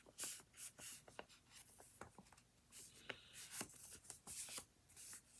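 Faint rustling and crinkling of a sheet of paper being folded and creased by hand, in short scattered crackles.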